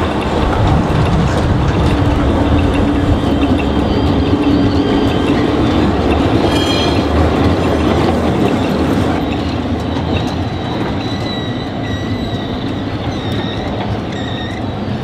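Tram passing close by: steel wheels rumbling on the rails under a motor hum, easing off from about nine seconds in as it moves away. Thin, high wheel squeals sound in the later part.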